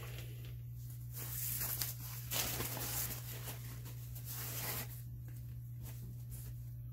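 Rustling of pleated fabric trim as hands smooth and flatten it on an ironing board, in bursts about one to five seconds in, loudest around two and a half seconds.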